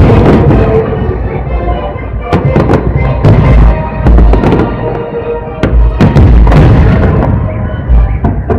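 Fireworks display: aerial shells bursting in repeated loud bangs, one every second or so, over music playing.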